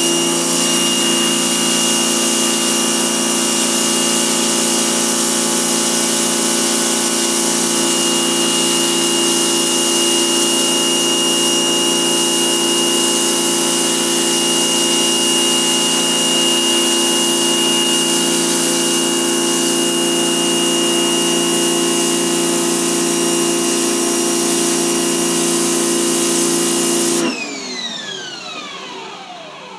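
1800 psi electric pressure washer running steadily under load, its motor and pump humming with a strong spray hiss as it strips paint from wood. Near the end the motor cuts off and its whine falls away as it spins down.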